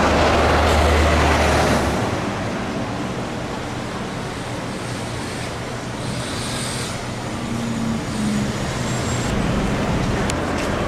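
Road traffic: a vehicle passes close by, loud for about the first two seconds with a low engine hum, then a steady hum of traffic on the road continues.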